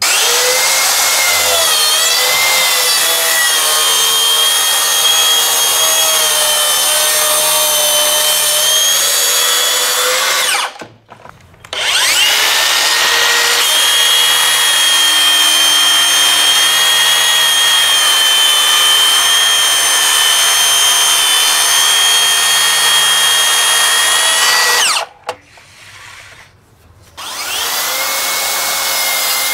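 Makita DSP601 18Vx2 (36 V) brushless plunge track saw running and cutting wood along its guide rail: a steady high whine. It runs in three passes, cutting off about eleven seconds in and again about twenty-five seconds in, then starting up once more near the end.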